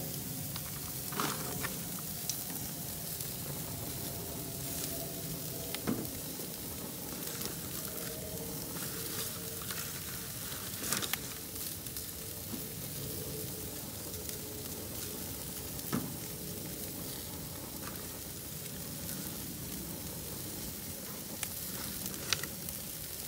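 Thin slices of seasoned beef sizzling on a hot grill grate: a steady sizzle with a few sharp pops scattered through it.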